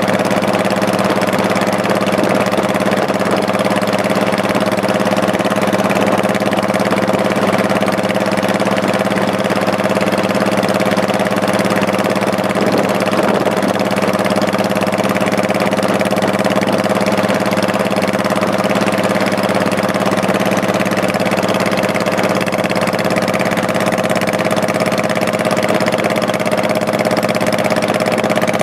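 Honda Shadow Spirit 1100's V-twin engine running at a steady, unchanging engine speed, with a steady rushing noise over it.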